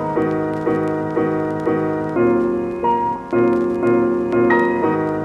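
Background piano music: evenly repeated chords struck about twice a second, with the chord changing every couple of seconds.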